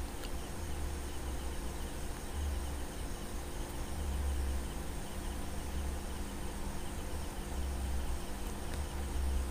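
Quiet background room noise between spoken lines: a steady low hum, with faint rapid high chirping behind it.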